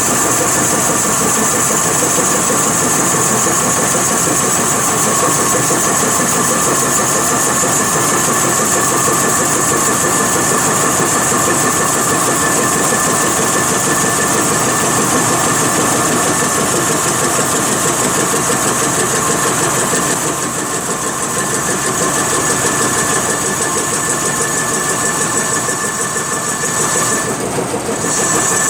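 CNC wood lathe running and cutting a turning: a steady motor whine with the hiss of the cutter on the spinning wood. It dips briefly about twenty seconds in and again near the end.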